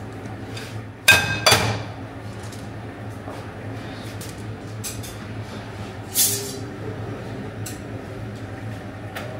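Flat metal kebab skewers clinking against each other and the metal rack as they are lifted and handled. There are two sharp ringing clanks about a second in and a higher clink past the middle, with small ticks between them over a low steady hum.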